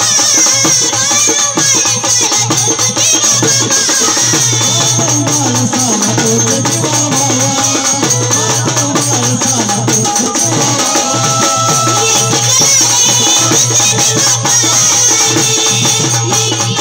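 Live waghya-murali folk music: a wavering sung or played melody over a steady drum beat and continuous jingling, rattling percussion.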